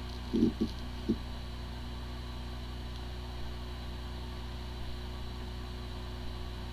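Hard drive with corrupted firmware spinning with a steady hum and whine, sounding like a healthy drive even though the computer cannot detect it. There are a few brief low bumps in the first second.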